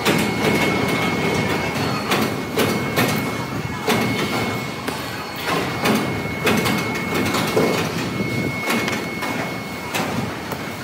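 Heavy factory machinery running, with a steady high whine over continuous mechanical noise and irregular metal clanks and knocks about once a second.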